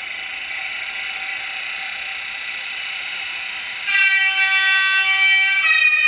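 Digital sound decoder in an N-scale ÖBB 4030 electric multiple unit model playing its running sound, a steady hiss, through the model's small speaker; about four seconds in a loud horn sounds, stepping down to a lower note near the end.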